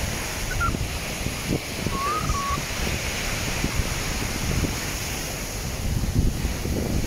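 Small waves breaking and washing up a sandy beach, with wind buffeting the microphone in a rough low rumble.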